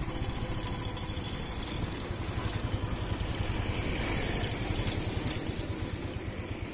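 Motorcycle engine running steadily as the bike rides slowly along a street, heard from on the motorcycle itself.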